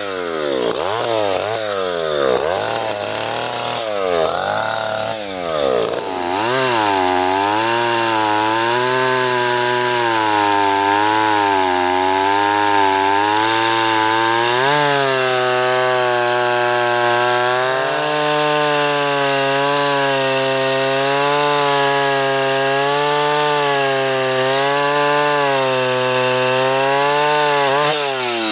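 Two-stroke chainsaw revved up and down several times, then held at full throttle while cutting through a large sweet gum log, its pitch wavering slightly under the load of the cut. Right at the end the cut goes through and the engine drops back.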